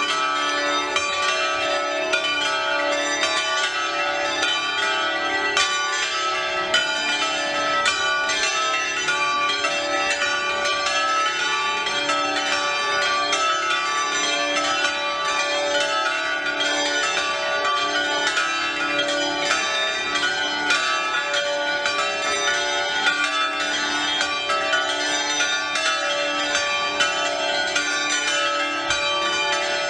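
A ring of five De Poli–cast church bells tuned D4, E4, F♯4, G4 and A4, swinging in the 'battaglio cadente' style, where the clapper falls onto the rim as each bell swings mouth-up. The strokes come thick and overlapping in a steady festive peal.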